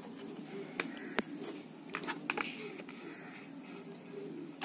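A few faint, sharp clicks and light handling noise of wires and plastic as bare power-bank leads are fiddled against the terminals of an RC stunt car's small DC motor, over a faint steady hum.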